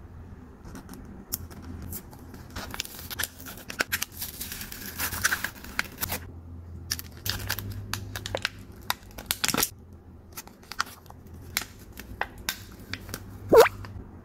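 Deno jelly squishy bear toys being squeezed and handled: irregular sticky crackles and clicks, thickest about four to six seconds in, with one louder short squeak near the end.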